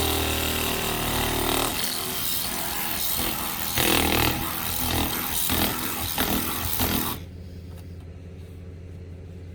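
Tool work on a car's windshield as it is cut and freed from the frame: a steady motor-like hum, then a run of scraping strokes and knocks. About seven seconds in the work stops and only a low steady hum remains.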